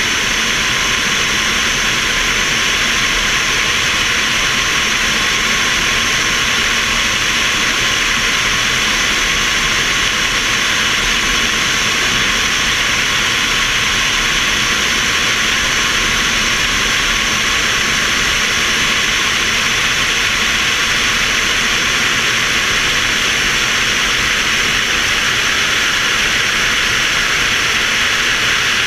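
Wind rushing over a camera mounted on a glider's wing in flight: a steady, even hiss.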